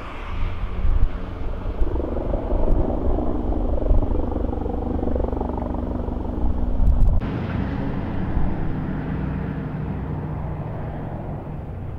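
Aircraft engines droning overhead over a heavy low rumble of wind on the microphone. After a cut about seven seconds in, there is a steady propeller drone from a Super Scooper water-dropping plane flying low over the fire.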